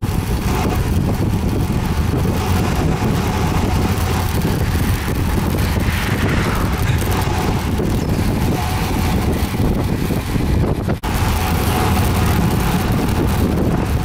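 Strong wind buffeting the microphone of a camera riding along on a bicycle: a loud, steady, fluttering rumble. It drops out briefly about eleven seconds in.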